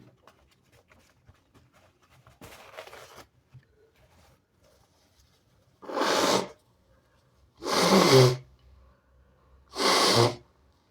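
A person sneezing harshly three times in a row, each sneeze under a second long and about two seconds apart, while sick.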